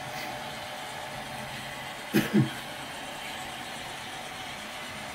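HO-scale model freight train running steadily across a layout bridge, a low even hum of motor and wheels on track. About two seconds in, two short, loud sounds falling in pitch cut in close together.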